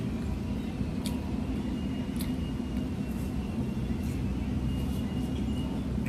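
Steady low rumble of road traffic, with a few light clicks and a faint high steady tone through the middle.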